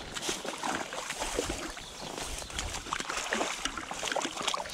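Hooked trout thrashing at the surface of the stream close to the bank, a run of irregular small splashes and sloshes.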